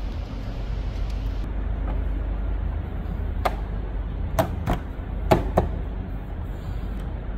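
A few short, sharp knocks and clicks of hard plastic as hands fit and press down the Jeep's plastic engine cover, over a steady low rumble.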